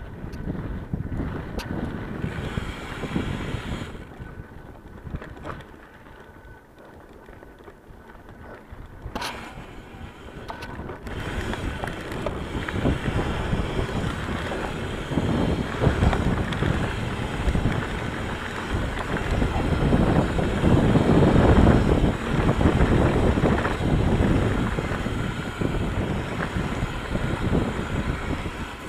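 Ibis Mojo HD3 mountain bike rolling along a dirt singletrack: tyre rumble and wind buffeting the microphone, with a few sharp clicks and rattles. It is quieter a few seconds in, then grows louder from about halfway as the ride speeds up.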